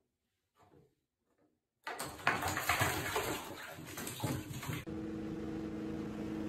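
A cat falling into a bathtub of water, splashing and scrambling for about three seconds after a near-silent start. About five seconds in, it gives way to a steady drone.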